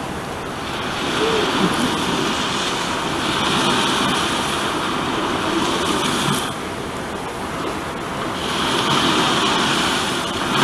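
Steady rush of water in a sea lion pool, swelling and easing, with a lull a little past the middle.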